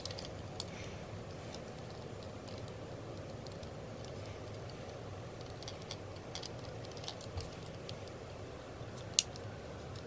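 Light, scattered plastic clicks and taps from handling a gaming mouse's shell and cable during reassembly, with one sharper click about nine seconds in, over a low steady room hum.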